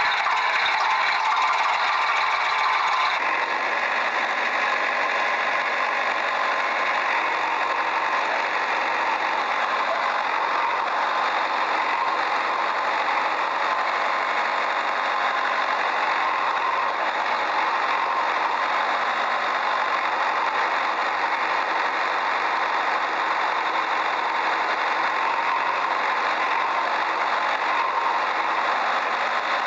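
A small motor running steadily with a rattle, its sound shifting slightly about three seconds in.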